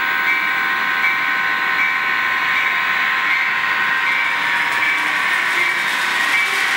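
HO-scale Bachmann DDA40X model diesel locomotive running under power along sectional track: a steady whine from its motor and gears over the running rattle of the train, with a light tick about every three-quarters of a second. It gets hissier near the end.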